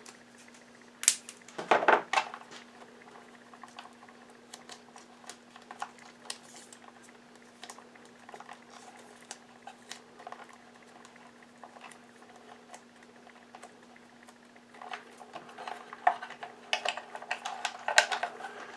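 Hands working on the wiring inside an opened vacuum cleaner: small clicks, taps and rustles of wires, wire nuts and electrical tape being handled, with two louder scraping rustles about one and two seconds in and busier handling near the end, over a faint steady hum.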